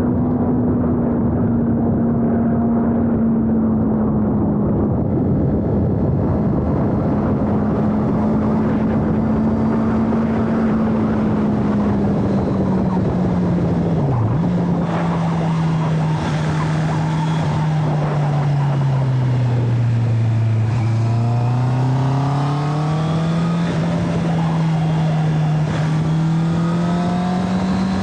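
Honda CB650R's inline-four engine running at high revs on the road. The engine note dips sharply about halfway through and drops to a lower pitch. It then sinks further as the bike slows, before rising again as the throttle is opened.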